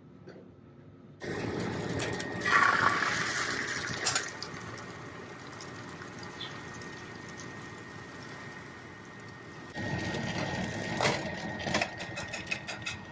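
Egg mixture sizzling in a rectangular tamagoyaki pan. It starts abruptly about a second in and is loudest soon after. It grows loud again near the end, when a run of light clicks of a utensil against the pan joins it.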